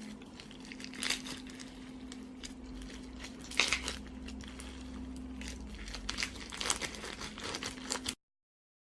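Slime being squished and pressed by hand, giving dense crackling clicks and small pops, with louder pops about a second in, midway and near the end. The sound cuts off suddenly shortly before the end.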